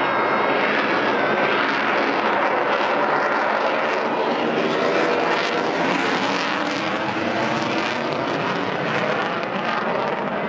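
F-22 Raptor's twin Pratt & Whitney F119 turbofan engines heard from the ground during a flying display: a loud, steady jet rush that eases slightly near the end as the jet moves away.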